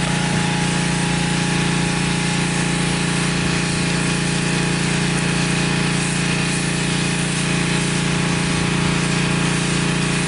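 Steady machine hum, even in pitch and level throughout, from a running motor or engine; no separate pouring or splashing stands out from it.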